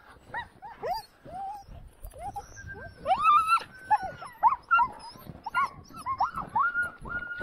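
Several harnessed sled dogs whining and yipping, many short cries that rise and fall and overlap, some drawn out into longer whines, while the team stands halted.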